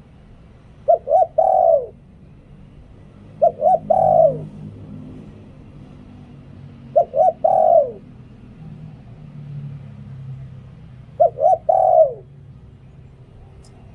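Spotted dove cooing its song four times, each phrase two short coos followed by a longer coo that falls in pitch, in the 'lio tan' (หลิ่วตัน) style of a dove used to lure wild doves. A faint low hum runs underneath.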